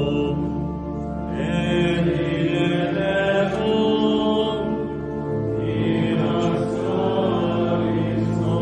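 A group of friars' male voices chanting a slow hymn together, holding long notes.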